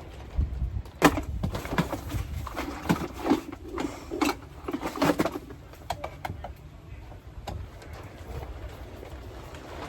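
Clicks and knocks of plastic trim and clips being handled while a car's interior door panel is taken off, densest for a few seconds after about one second in, then a few scattered ticks.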